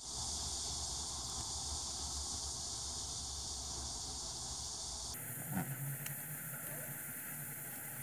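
Steady background hiss with no calls from the frogs; the noise changes abruptly about five seconds in, where a faint low hum and a light tap or two come in.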